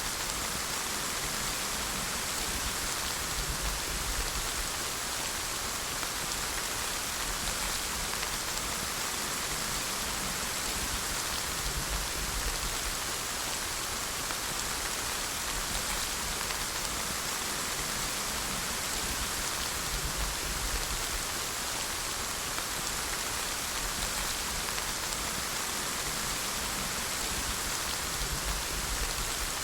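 Steady rain falling, an even hiss of drops on surfaces with a low rumble underneath.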